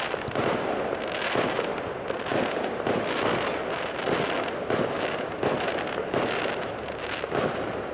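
Fireworks going off overhead: a dense, continuous run of crackling pops and bangs.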